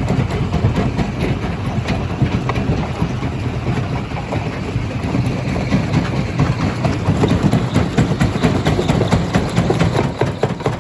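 Stone crusher machine running under load, a steady heavy rumble with a dense crackle of rock being broken, the cracking thicker in the second half.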